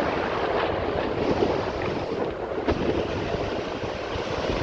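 Big Atlantic waves breaking and rushing in the surf, with wind buffeting the phone's microphone.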